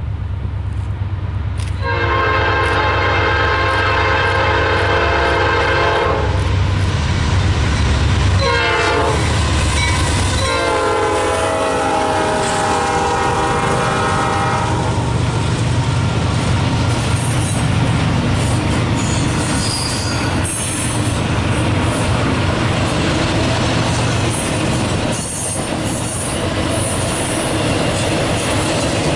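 Diesel locomotive air horn sounding a multi-note chord in three blasts: long, short, then long, the last dropping slightly in pitch as the locomotive passes. The engine rumbles under the horn, followed by the rolling clatter of train cars with intermittent wheel squeal.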